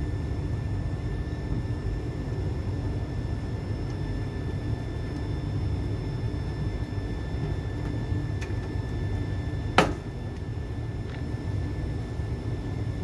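Steady low rumble with a faint high whine, and a few small metal clicks as a wrench works the refrigerant pipe fittings on an air-conditioner condenser's service valves. The loudest is a single sharp clink near the end.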